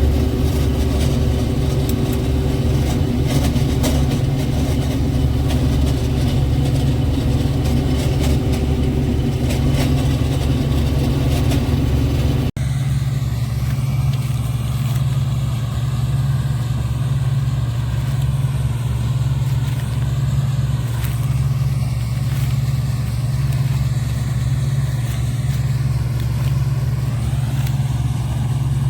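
Combine harvester (CLAAS Dominator) running steadily under load while harvesting corn, with a constant low drone. About twelve seconds in it breaks off for an instant, then carries on as a deeper, smoother drone.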